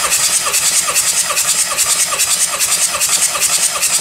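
VW 1.9 TDI (AXB) four-cylinder diesel being cranked over on its starter for a compression test, churning in an even quick rhythm of about four to five beats a second. The gauge on cylinder two is building to about 32 kg/cm².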